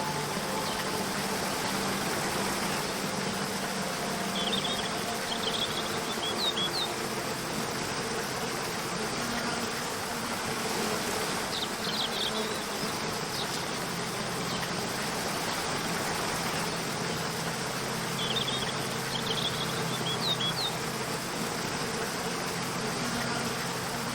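Waterfall with a steady rush of water, and short clusters of high bird chirps coming every several seconds.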